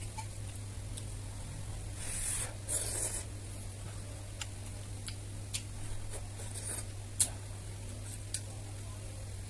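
Someone eating noodle soup from a clay pot. There is slurping about two seconds in, and a few light clicks of chopsticks and a metal spoon against the pot, all over a steady low hum.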